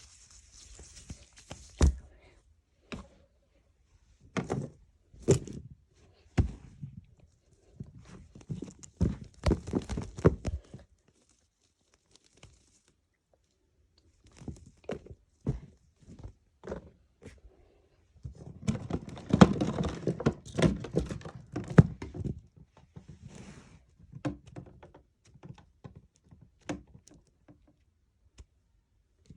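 Fidget toys being handled: irregular clicks and knocks, busiest for a few seconds about two-thirds of the way through.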